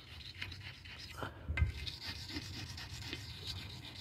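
Pumice stone rubbing and scraping on a porcelain toilet tank, scouring off small paint drips.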